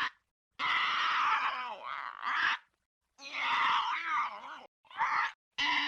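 A run of four separate vocal groans and cries with wavering pitch, each a separate effect cut off sharply with dead silence between them.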